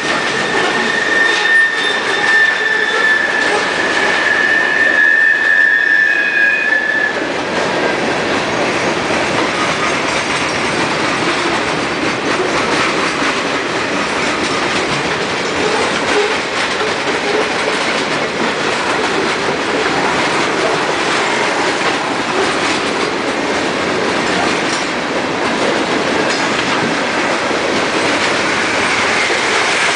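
Freight cars of a CSX mixed freight train rolling past over a grade crossing: steady rumble and clatter of wheels on rail. A high, steady squeal from the wheels sounds over it, sagging slightly in pitch, and stops about seven seconds in.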